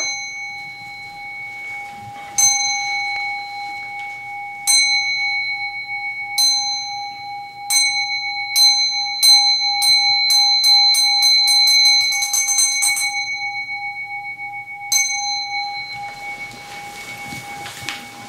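A ringing meditation bell, struck at intervals that grow steadily shorter until they run together in a rapid roll, then struck once more about two seconds later and left to ring out. An accelerating bell roll-down of this kind is a Zen signal marking the start of a talk.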